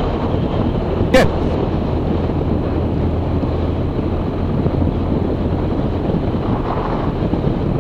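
The Zenith CH 650's 118-hp UL350i engine running steadily on the ground after landing, mixed with wind noise. There is one brief sharp click about a second in.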